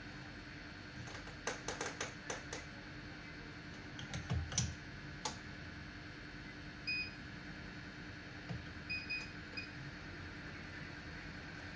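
YCS R1 Pro hot air rework station running with a steady hum and hiss, under clusters of light clicks and taps about one to five seconds in. A few short electronic beeps come about seven and nine seconds in.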